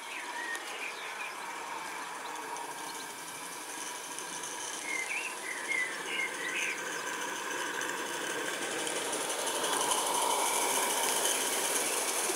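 Live-steam garden-scale Darjeeling B Class locomotive running with its train of coaches. Its steam hiss and running noise grow louder over the last few seconds as it draws near. A few bird chirps sound about five to seven seconds in.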